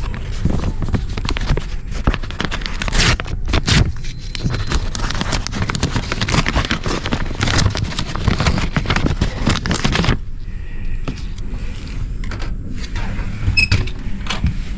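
Paper envelope rustling and scraping right against the microphone, a dense crackle for about the first ten seconds, then fainter with a few ticks.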